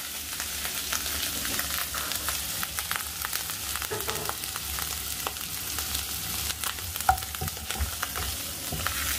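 Ginger-garlic paste sizzling and crackling in hot ghee in a pan, stirred by a wooden spatula that scrapes and knocks against the pan; one sharper knock comes about seven seconds in.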